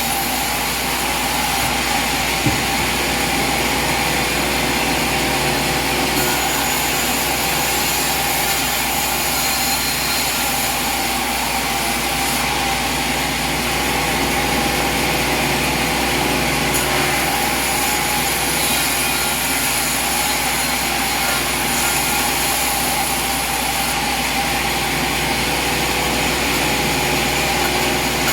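Steady mechanical drone, like an engine or motor running at a constant speed, with one short sharp knock about two and a half seconds in.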